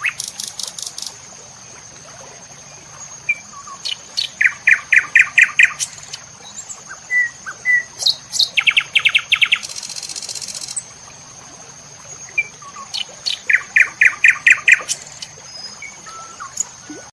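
Birds chirping: one repeats a phrase of about seven quick, even notes three times, roughly every four to five seconds, among other short high calls. A steady high whine runs underneath.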